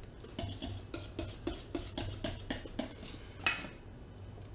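Thick beer batter being stirred in a stainless steel mixing bowl, the utensil clicking against the metal about four times a second, with one louder knock about three and a half seconds in.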